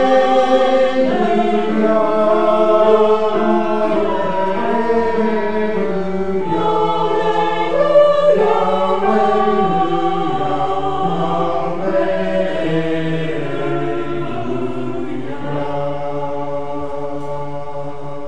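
Choir singing in harmony, moving through slow held chords and growing gradually quieter, ending on a long held chord.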